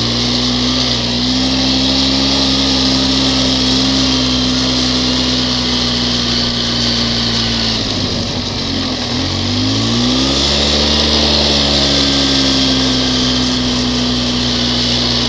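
ATV engine running steadily under way. About eight seconds in the throttle is let off and the pitch drops, then the engine revs back up a second or so later and settles again.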